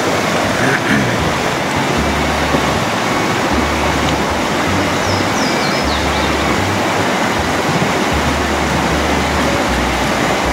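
Panther Creek rushing over rocks: a loud, steady rush of moving water. Low rumbles on the phone's microphone come and go.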